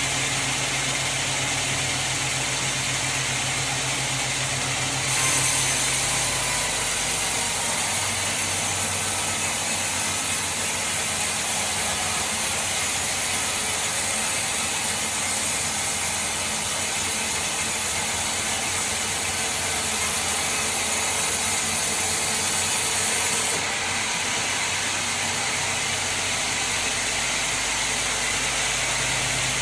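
Sawmill machinery running steadily with a low mechanical hum. A higher hiss joins about five seconds in and stops a little before the end.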